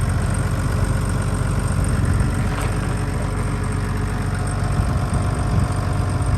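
Diesel engine of a Cat M316C wheeled excavator idling steadily.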